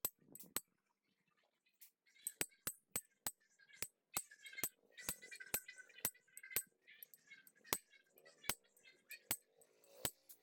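A hand impact driver being worked on a stripped, rounded screw: irregular sharp metallic clicks and clinks, about two to three a second, after a short pause near the start.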